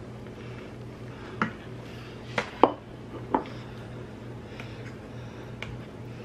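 Kitchenware knocking as food is plated: four sharp knocks of a serving spoon and plate within about two seconds. These are followed by a few light ticks of a fork and knife against a metal pan as the meatloaf is cut. A steady low hum runs underneath.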